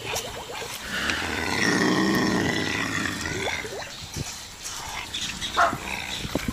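An animal growling: one drawn-out, rough growl from about a second in until about three and a half seconds in, followed by quieter rustling noises.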